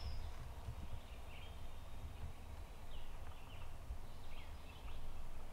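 Faint, scattered songbird chirps over a steady low rumble in the woods.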